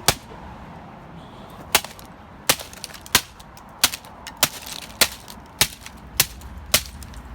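A keyboard being struck hard over and over: about ten sharp cracks, roughly two-thirds of a second apart.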